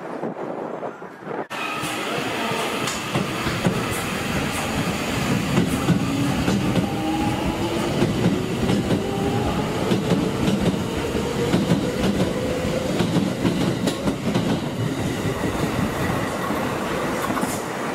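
A Tokyo Metro 2000 series Marunouchi Line train running along the track. It starts suddenly about a second and a half in, then its motor whine rises steadily in pitch for about ten seconds as it gathers speed, over a rumble and clatter of wheels on the rails.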